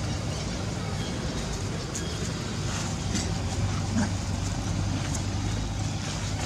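A steady low mechanical hum with faint scattered ticks over it.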